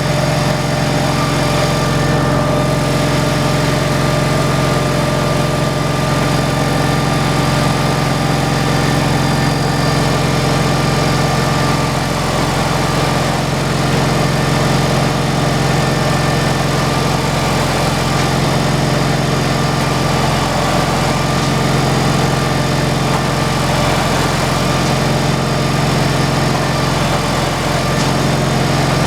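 Engine running steadily at a constant speed, loud and unchanging.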